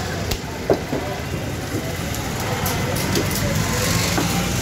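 Steady engine rumble of street traffic, with a few sharp knocks in the first second or so as a cleaver chops a triggerfish on a wooden block.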